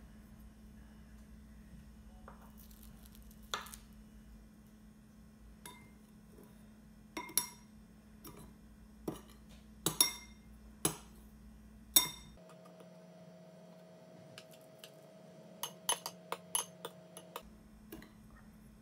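Metal spoon clinking against a glass bowl while scooping kinako over rice balls: irregular single clinks, with a quick run of them near the end.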